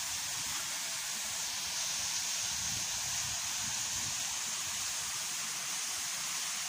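Waterfall pouring down a rock face: a steady, even hiss of falling water.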